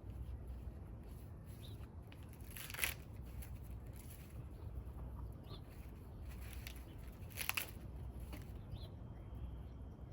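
Fresh ears of corn being husked by hand: quiet rustling with two short, sharper rips, about three seconds in and again about two-thirds of the way through.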